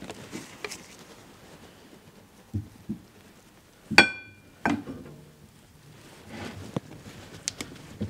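Hydraulic cylinder gland nut being worked onto its chromed steel piston rod: a couple of soft knocks, then a sharp metal-on-metal clink that rings briefly about halfway through, and another knock just after.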